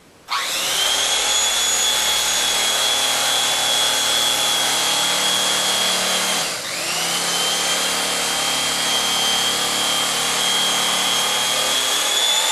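Electric knife switched on just after the start, its motor running with a steady high whine as the blades saw through thick upholstery foam. About halfway it briefly dips in pitch and level, then comes back up to speed.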